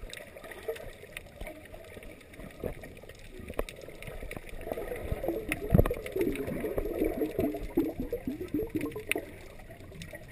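Muffled water sound picked up by a camera held underwater: gurgling and sloshing with scattered sharp clicks, busier and louder for a few seconds in the middle.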